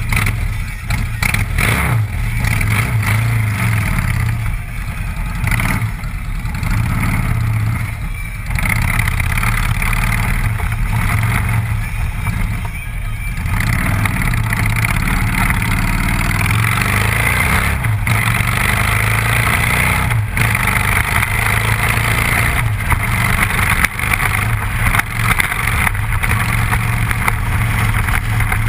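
Cruiser motorcycle engine and exhaust running under way, pulling away and cruising, with brief dips in level every few seconds as the rider shifts or rolls off the throttle. Wind rushes over the side-mounted microphone.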